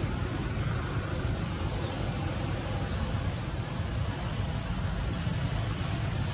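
Steady low outdoor background rumble, with faint short high chirps roughly once a second.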